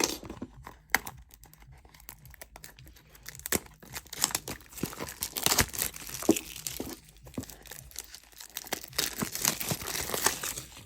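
Plastic shrink wrap being cut and torn off trading-card boxes, crinkling and tearing in irregular bursts with sharp crackles.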